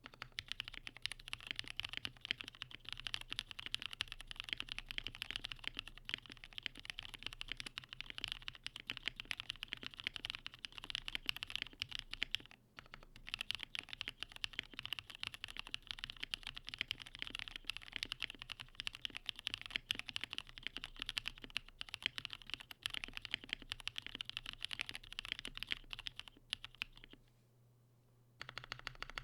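Steady typing on a KBDfans KBD67 Lite mechanical keyboard mounted without a plate on a silicone pad and foam, with lubed linear switches (Kailh black stems in Cherry MX housings) and PBT keycaps. The keystrokes come in a dense run, broken by a brief pause about halfway and a pause of a second or so near the end.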